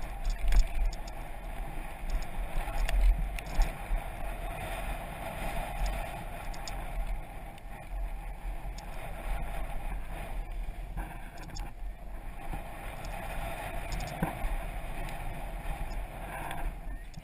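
Wind buffeting the microphone of a helmet-mounted camera on a mountain bike riding fast down a dirt trail, with tyre noise on the dirt and scattered clicks and rattles from the bike over the bumps.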